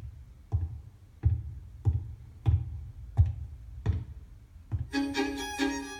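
Background music: a steady low beat, about three thumps every two seconds, joined about five seconds in by a string melody.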